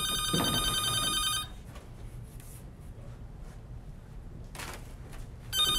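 Telephone ringing with an electronic trill: one ring lasting about two seconds fades out near the start, and the next begins about four seconds later, near the end.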